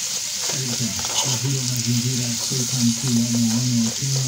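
Meat, onions and tomatoes sizzling as they fry in an aluminium pot, with a low steady hum underneath from about a second in.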